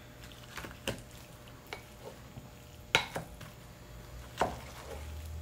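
A rice paddle stirring and scraping rice in a clay pot, turning up the crispy rice crust from the bottom: a few short scrapes and knocks against the pot, the loudest about three seconds in.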